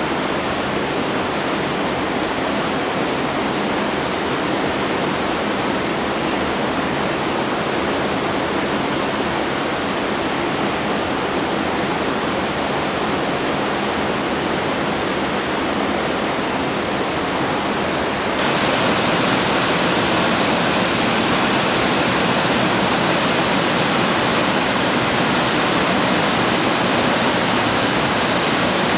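Steady rush of river water pouring over a weir in a white-water cascade. About two-thirds of the way through it jumps suddenly louder and brighter, then runs on evenly.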